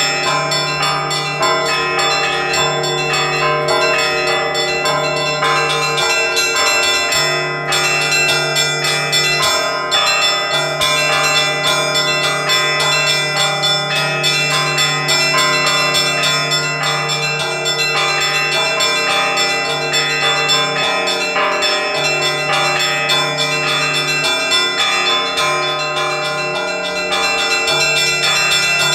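Orthodox church bells of the Resurrection Cathedral in Vitebsk rung together in a continuous festive Easter peal. Many higher bells strike in quick succession over the deep hum of a large bell, which sounds in long spells with short breaks.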